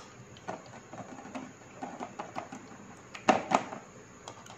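A plastic blender jug tapping and clicking against a stainless-steel strainer as thick ground jamun pulp is poured into it: scattered light taps, with two louder knocks about three and a half seconds in.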